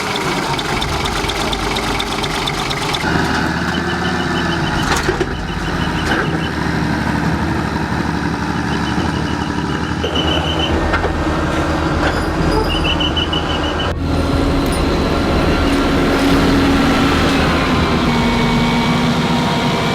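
Large truck engine running steadily while towing a big boat, its note shifting a few times. Short runs of high-pitched beeping come and go in the middle.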